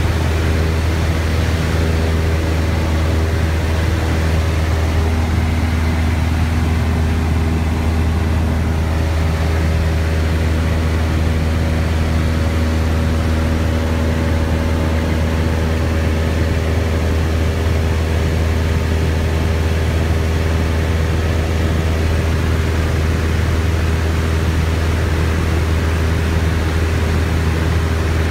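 Cessna 172's piston engine and propeller running steadily in flight, heard inside the cabin as a continuous deep drone with a low hum and a few steady overtones.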